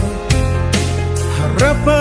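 Band playing a Malay pop ballad, with steady bass notes and drum hits. A lead vocal line bends in near the end.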